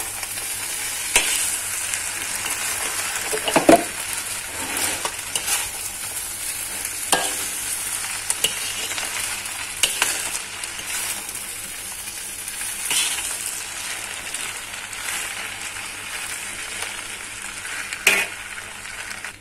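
Rice vermicelli with squid and tomato sizzling in a hot wok as it is stir-fried, with a spatula scraping and knocking against the pan every couple of seconds.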